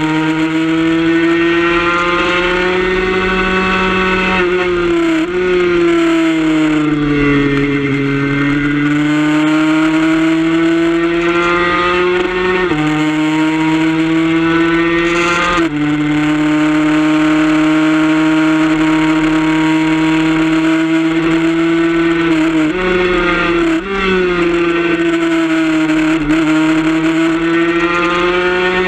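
Suzuki RG150 single-cylinder two-stroke engine at race pace, recorded onboard. The revs sag and climb back through the corners, with sudden steps in pitch at gear changes a few times.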